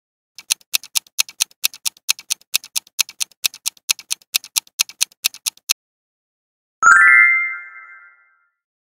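Quiz countdown timer sound effect: a clock ticking fast, about five ticks a second, for roughly five seconds, then stopping. About a second later a bright chime rings and fades, marking the answer reveal.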